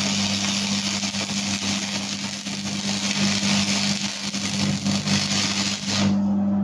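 Stick (arc) welding: the electrode's arc gives a steady crackling hiss, which cuts off suddenly about six seconds in as the rod is pulled away. A steady low hum runs underneath throughout.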